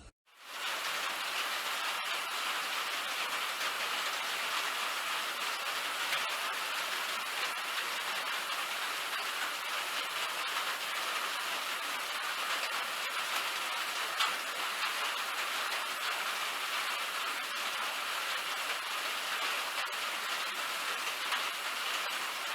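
A steady, even hiss with a few faint scattered ticks, starting abruptly about half a second in.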